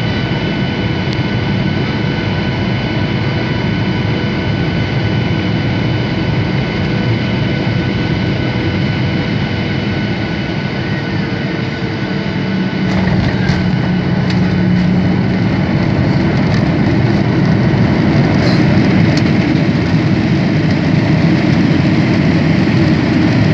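Jet airliner cabin noise over the wing: steady engine whine and rushing air on final approach. About halfway through, the wheels touch down with knocks and rattles, and the engine noise grows louder during the landing roll as reverse thrust is applied.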